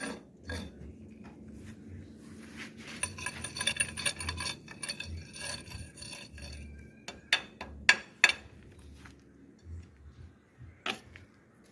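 Hard objects clinking and tapping, with a run of quick light clicks and then three sharp knocks close together, one more knock near the end.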